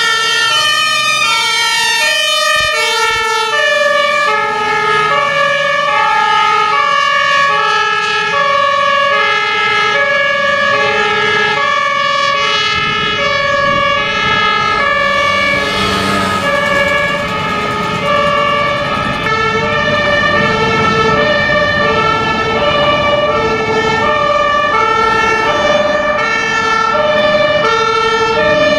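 Fire engines' two-tone sirens (German Martinshorn) sounding, alternating steadily between a high and a low note. Truck diesel engine noise swells around the middle as a vehicle passes close.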